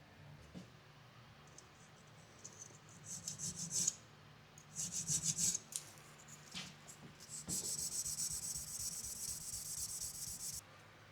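A jeweller's hand tool rasping on 18k yellow gold in quick, even back-and-forth strokes. It comes in three spells: a short one about two and a half seconds in, another about five seconds in, and a longer run from about seven and a half seconds until shortly before the end.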